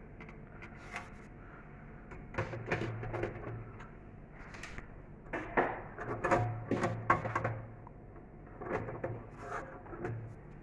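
Metal cover of a desktop computer case being fitted back on: a run of irregular clicks, knocks and scrapes, busiest in the middle, as the cover is lined up and latched into place.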